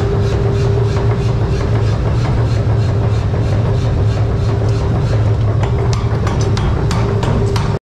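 Forge-shop machinery running steadily: a constant low hum with a faint, regular ticking. The sound cuts out for an instant near the end.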